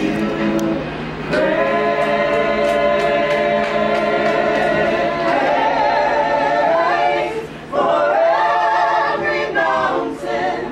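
A gospel choir singing a cappella in harmony, holding long chords, with short breaks about two thirds of the way through and near the end.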